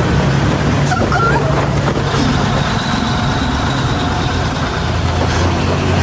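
Heavy truck engine running with a steady low drone as a large truck rolls past, with a short high squeal about a second in.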